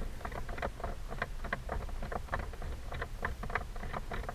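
Screwdriver turning a Phillips screw out of the plastic steering column cover: a string of small, irregular clicks, about two to three a second, over a low steady hum.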